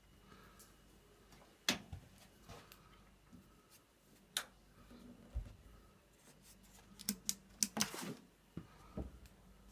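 Scattered sharp clicks and knocks from things being handled, with a quick run of several clicks about seven to eight seconds in.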